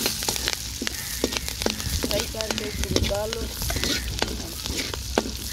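Green chillies sizzling in hot oil in an aluminium karahi, with a steady hiss and many short sharp clicks, stirred with a metal slotted spoon.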